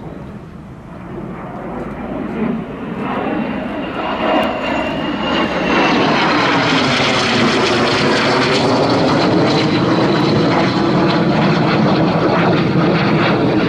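Aero L-39 Albatros jet trainer's turbofan engine in a flypast: a roar with a high whine that builds over the first half and holds loud through the second half.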